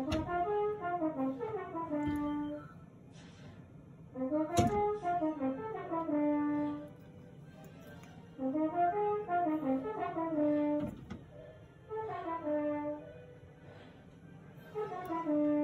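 Background music with a brass-like sound: a short phrase of stepping notes that ends on a held low note, repeated about every four seconds. A sharp click sounds about four and a half seconds in.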